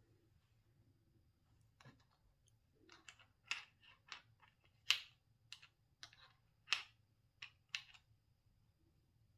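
Small hard plastic toy pieces clicking and tapping against one another as gloved hands handle and set them down: about a dozen light, quick clicks, irregularly spaced, starting about two seconds in and stopping near the end, the loudest about halfway through.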